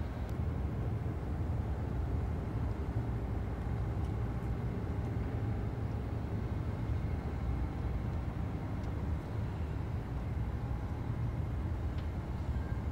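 Steady low outdoor rumble, like distant traffic or machinery, with a few faint ticks.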